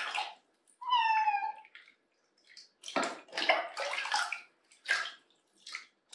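A cat meows once, a short cry falling slightly in pitch, about a second in. Then water poured from a cup over the cat in a plastic tub splashes in several bursts.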